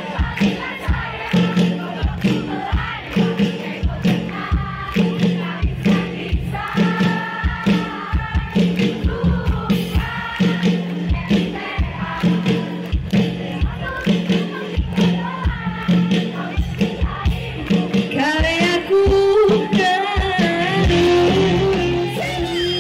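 Live band music with a steady drum beat about twice a second and many voices singing along. About eighteen seconds in, one woman's voice takes the lead, singing with a wavering vibrato over the band.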